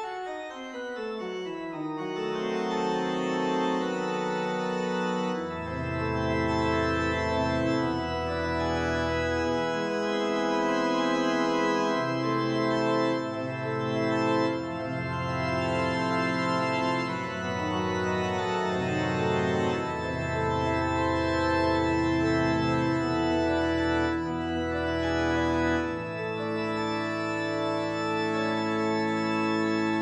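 Background music: slow, held chords over a low bass line that shifts every second or two, starting with a short falling run.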